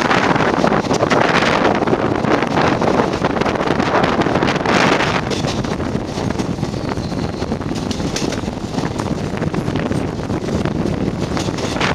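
Rushing wind on the microphone out of a moving passenger train's window, over the rumble and clatter of the coaches running on the rails. The rush eases somewhat after about five seconds and picks up again near the end.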